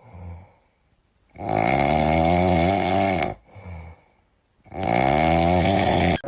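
Loud snoring: two long, wavering snores of about two seconds each, with a short, quieter breath between them.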